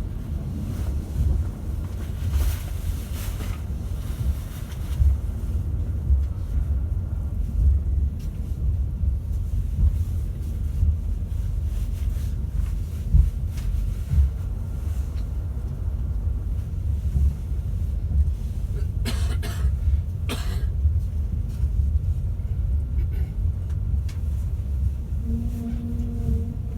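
Class 390 Pendolino electric train under way, heard inside the carriage from a seat above the traction motors: a steady low rumble from the running gear. There are brief rattles about 19 and 20 seconds in, and a steady hum at two pitches starts near the end.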